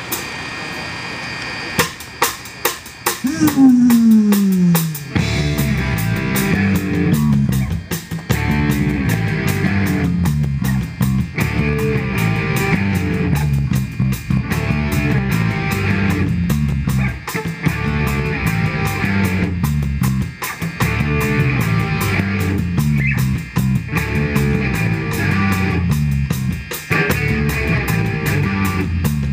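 A live rock-funk band playing an instrumental opening. It begins with a few drum hits and a low sliding note falling in pitch, then from about five seconds in settles into a steady groove of drums, bass and electric guitar.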